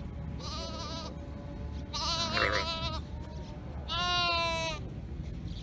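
Sheep bleating three times, the first two calls wavering and the third steadier and loudest, over a steady low background rumble.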